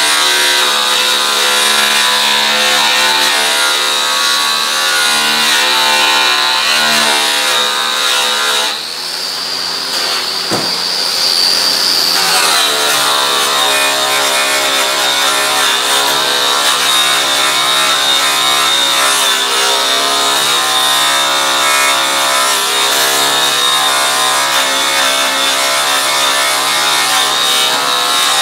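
Electric rotary buffer spinning an airway buffing wheel loaded with cutting compound against an aluminum snowmobile tunnel: a steady high motor whine over a lower hum. For a few seconds around the middle the whine rises in pitch and the sound thins a little, then it settles back to its working pitch.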